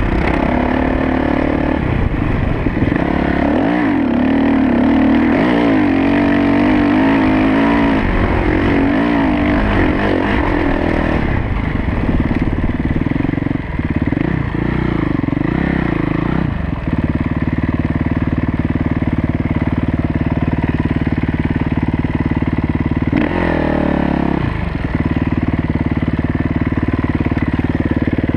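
Kawasaki KX450F dirt bike's single-cylinder four-stroke engine under way on a trail, revving up and down through the first half, then holding a steady speed, with one brief drop and rise in revs near the end.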